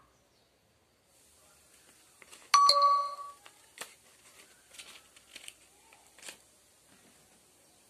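A short ringing metallic ding about two and a half seconds in, the loudest sound, then a few separate snips of scissors cutting through paper.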